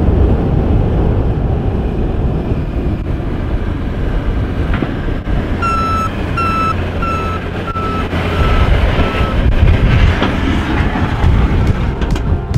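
Snow-removal vehicle running with a steady low rumble. About six seconds in, a reversing alarm beeps about seven times at an even pace, the later beeps fainter.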